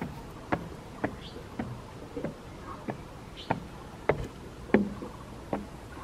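Footsteps climbing a metal-framed stairway, about two steps a second, each a dull thump, the loudest a little before the end.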